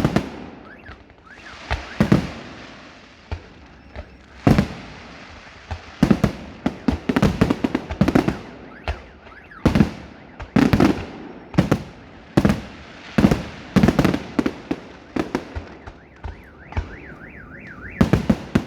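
Fireworks display: aerial shells bursting in quick succession, a sharp bang every second or so with crackling between, and a denser run of bangs near the end. A warbling tone rises and falls near the end.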